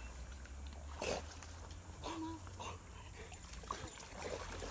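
Light splashing of an Irish Setter swimming through a fast-flowing creek, with a few short splashes over the steady wash of the water.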